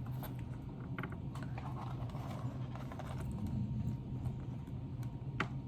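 Scattered light clicks and taps over a low steady hum.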